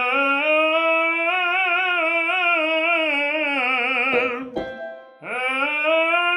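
A male tenor singing a vocal warm-up exercise in full, covered voice. Each phrase scoops up into a long sung line with vibrato. The first phrase falls away about four seconds in, and after a short breath a second phrase slides up and holds.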